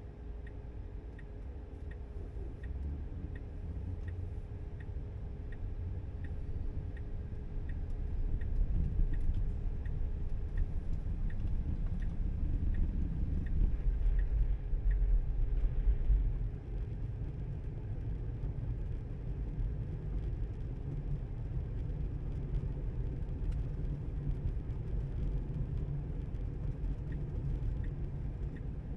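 Road and tyre rumble heard inside a Tesla's cabin while it drives, growing louder for the first half and dropping suddenly about halfway through. A turn-signal indicator ticks steadily, a little more than once a second.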